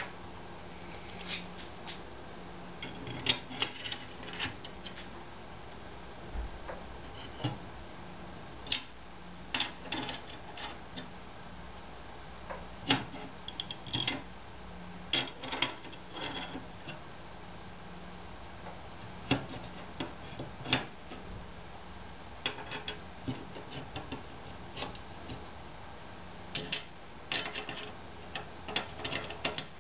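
Irregular small metallic clicks and ticks of an Allen key and bolts being handled and turned while a linear rail is bolted onto aluminium extrusion, over a faint steady hum.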